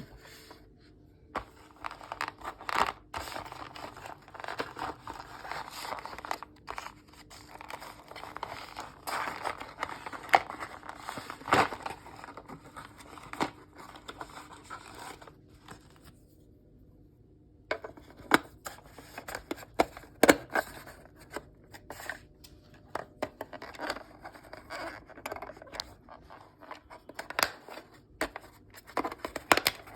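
Close handling noise from swapping the AA battery in an alarm clock: irregular clicks and scraping, with a short pause just past halfway.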